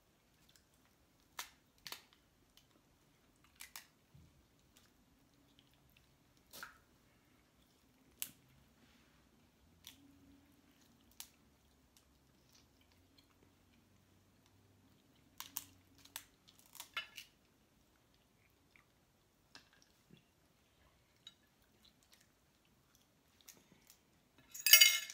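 Sporadic sharp cracks and clicks of crab legs being snapped and picked apart by hand, with chewing. A longer, louder burst of crackling comes near the end.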